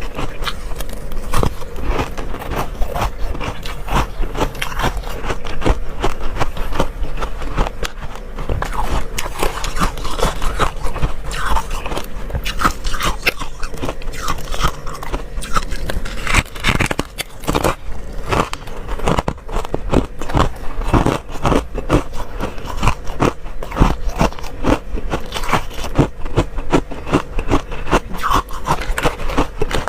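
Close-miked freezer frost being bitten and chewed: a dense, irregular run of crisp crunches and crackles without pause. A faint steady hum sits underneath.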